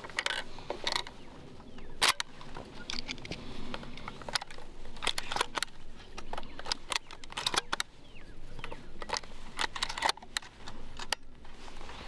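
Shells being pushed into the magazine tube of a 20-gauge semi-automatic shotgun: an irregular string of sharp metallic clicks and snaps from the loading port and shell latch.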